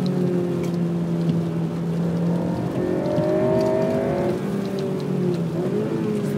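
Honda Civic Type R FN2's 2.0-litre four-cylinder VTEC engine running under load, its pitch holding, rising, dipping briefly about five seconds in, then climbing again, over a steady hiss.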